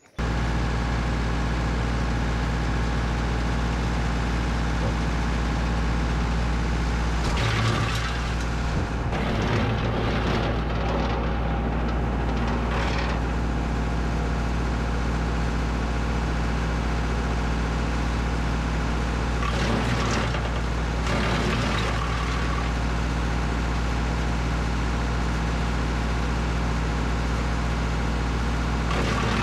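Tractor-driven PTO wood chipper running steadily on the tractor's diesel engine. Several louder rough surges of a second or two, the first about seven seconds in, as hand-fed branches are chipped.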